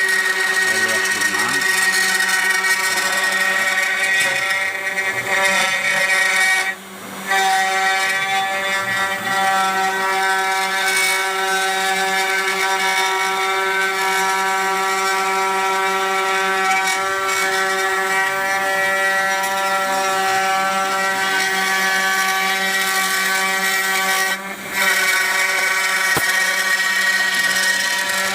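CNC router spindle running steadily as it carves a relief into a wooden board: a constant whine over cutting noise, dropping out briefly twice.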